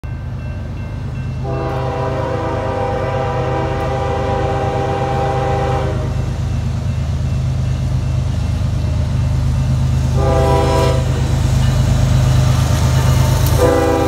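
Nathan K5HL five-chime air horn on a Union Pacific AC45CCTE diesel locomotive sounding a grade-crossing signal: a long blast, a short blast about ten seconds in, and another long blast starting near the end. Under the horn, the low rumble of the approaching locomotives grows steadily louder.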